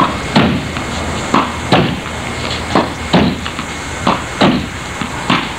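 Repeated thuds of a ball bouncing on concrete and being hit, about eight impacts at an irregular pace, often in quick pairs.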